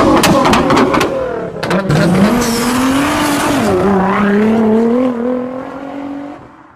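Car engine revving, its pitch rising and falling, with a few sharp clicks in the first two seconds; it fades out near the end.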